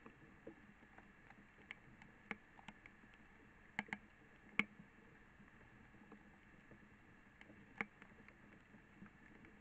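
Faint, irregular dripping in rain-soaked forest: scattered sharp ticks of water drops landing on leaves, over a steady low hiss. The loudest drops come a few seconds in and again near the end.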